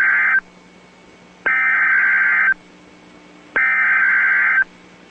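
Emergency Alert System SAME header on NOAA Weather Radio: three bursts of warbling digital data tones, each about a second long with about a second's gap between them, the first already under way. The header is sent three times, marking the start of an EAS message.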